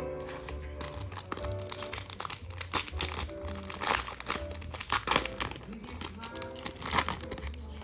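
Crinkling plastic from handling trading-card packs and cards, a run of sharp crackles with the loudest about four, five and seven seconds in, over steady background music.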